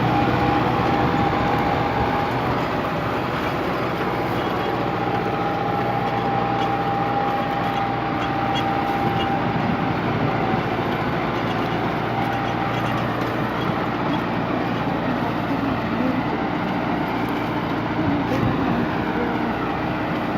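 Kubota MU5501 tractor's four-cylinder diesel engine running steadily under load, pulling a three-furrow reversible mouldboard plough in deep ploughing. A steady high whine rides over the engine and fades out about halfway through.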